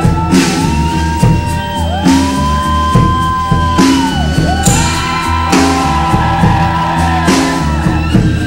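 Rock music playing, with a steady drum beat and crash cymbals under three long, held high notes that each slide up into pitch and fall away at the end.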